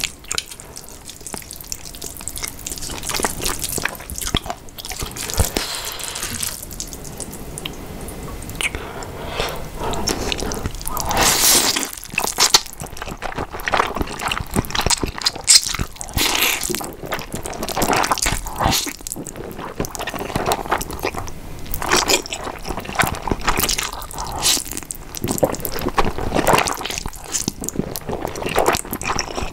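A person slurping and chewing saucy stir-fried instant noodles close to the microphone: wet sucking and smacking in quick, irregular bursts.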